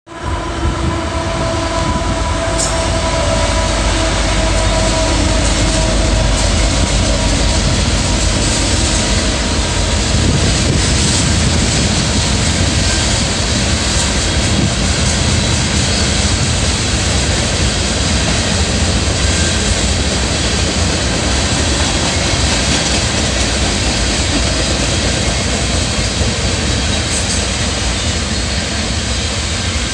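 Canadian Pacific freight train passing close by: the locomotives' steady hum in the first several seconds, fading as they go by, then the continuous rumble and rush of freight cars rolling over the rails.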